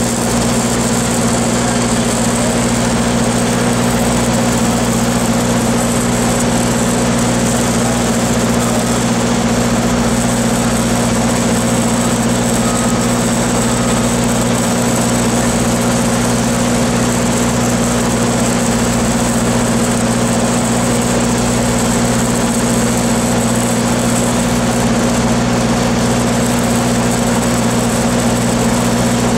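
Engines running with a steady drone, over the hiss and crackle of stick (shielded metal arc) welding on a steel pipe joint.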